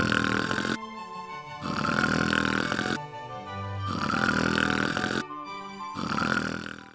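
Cartoon snoring sound effect: four long, rasping snores about two seconds apart, over background music.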